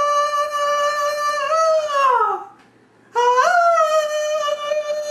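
Two long, high, wailing vocal notes. Each rises at its start, is held steady, then slides down. The first dies away about two seconds in, and the second begins about three seconds in.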